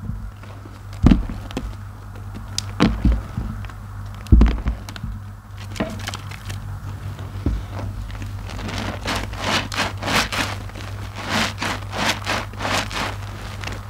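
IKEA mesh bath loofahs squeezed by hand in a plastic tub of soapy water: wet squelching with crackling foam. There are a few dull thumps in the first half, then quick repeated squelches about two a second from about eight seconds in. A steady low hum runs underneath.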